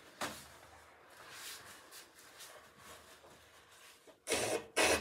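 A girl blowing her nose hard into a paper tissue near the end, one short forceful burst. Before it, a faint click and quiet rustling.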